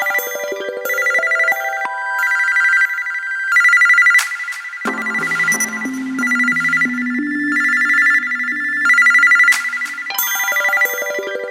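Android ringtone playing on a Momo Droid 750: a synthesized tune that opens with a descending run of notes, breaks into bright two-tone ringing bursts, and plays a lower melody in the middle. The pattern starts over near the end, so the tone repeats about every ten seconds.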